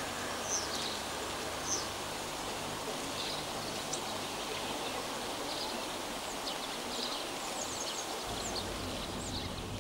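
Outdoor village ambience: small birds chirping now and then over a steady rushing background noise, with a low hum coming in near the end.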